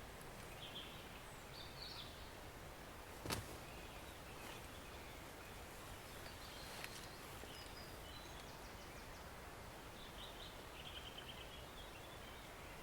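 A forest stream running with a steady, soft rush of water, and small birds chirping now and then. A single sharp click about three seconds in stands out as the loudest moment, with a fainter tick a few seconds later.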